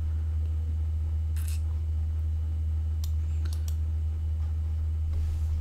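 Computer mouse clicks, a quick run of about four sharp clicks around three seconds in, after a brief scratchy noise about a second and a half in, all over a steady low hum.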